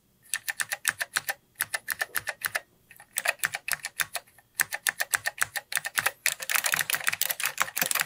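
Apple IIc keyboard with Alps White key switches being typed on, miked close up: clicky keystrokes in quick runs broken by short pauses, coming fastest near the end.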